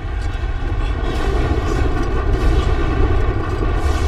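Cinematic sound design: a deep, continuous rumble under a sustained droning tone, building slightly in loudness.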